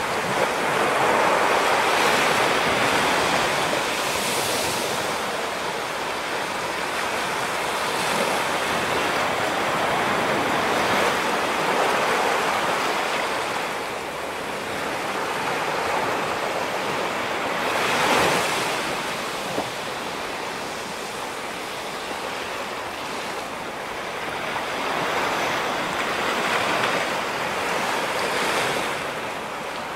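Ocean waves breaking and washing against a rocky shore, swelling and easing every few seconds, with one larger wave breaking about eighteen seconds in.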